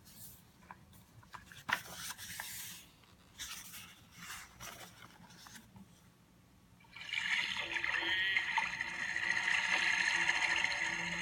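Paper and board rustling and scraping as the sound book is handled, then, about seven seconds in, the book's built-in sound module plays a clip of violin music.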